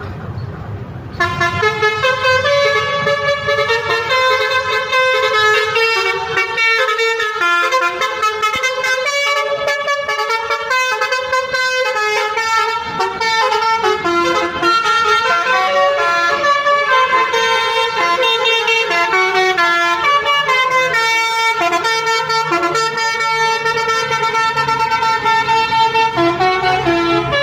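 Basuri telolet bus horn, a multi-tone horn, playing a quick melody of horn notes. It starts abruptly about a second in and keeps changing pitch note by note.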